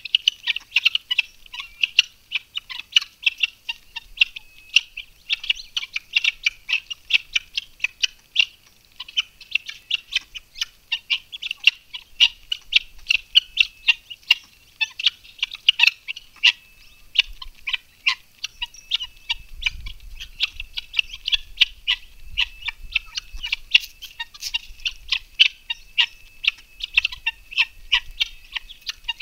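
Birds calling: a dense, unbroken run of short, high chirping notes, several a second.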